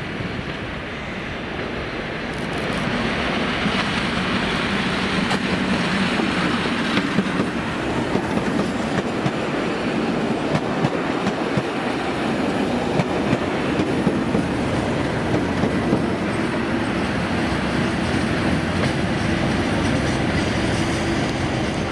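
Class 37 diesel locomotives' English Electric V12 engines running as a loco-hauled train passes, with the wheels clicking over the rail joints. The sound swells about two seconds in and stays loud, with a steady low engine note.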